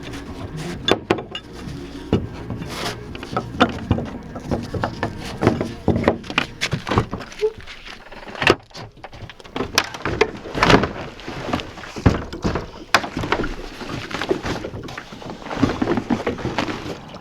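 Irregular knocks, clunks and rattles, many in quick succession, with several louder knocks around the middle and near the end.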